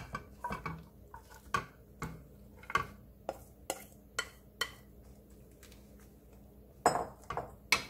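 Wooden spoon knocking and scraping against a glass mixing bowl as egg-coated shredded cabbage is pushed out into a frying pan: irregular clinks and taps, with a louder clatter near the end.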